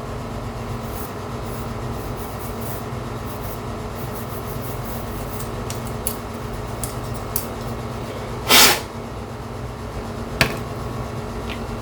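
Steady hum of a fan or air conditioner, with faint handling clicks as a plastic DVD drive face plate is cleaned; a short, loud noise of the cleaning about two-thirds of the way through, and a sharp click a couple of seconds later.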